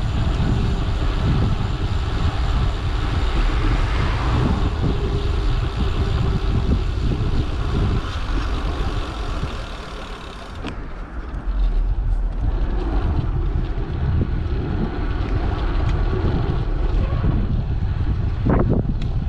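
Wind rushing over the microphone of a camera on a moving bicycle, with road rumble. It drops away briefly about halfway through, then picks up again.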